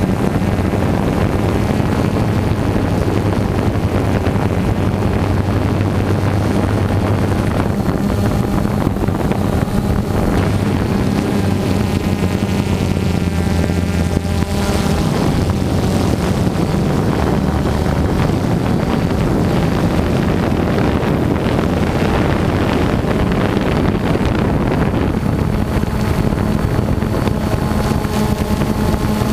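Quadcopter drone's electric motors and propellers buzzing steadily, heard from the drone itself, with the pitch shifting now and then.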